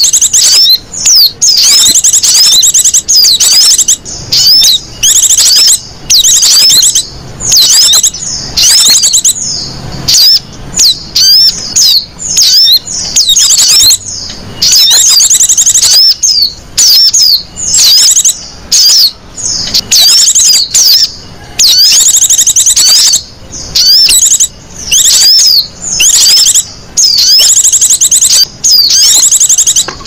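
Recorded lure call of small songbirds, a mix of twittering and chattering song used to draw in small birds. It plays as loud, fast, high-pitched trills in repeated phrases of about a second, with brief breaks between them.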